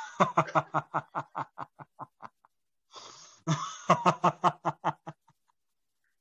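Hearty laughter during a laughter yoga exercise, in two bouts of rapid 'ha-ha' pulses, about six a second, each fading away. The second bout starts about three seconds in.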